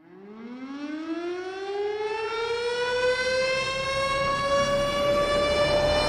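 A siren-like wail winding up from silence, rising steadily in pitch and growing louder over the first few seconds, then holding nearly level.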